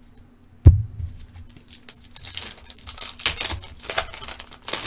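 A single thump less than a second in, then the crinkling and tearing of a foil trading-card pack wrapper being opened by hand, in several rustling bursts.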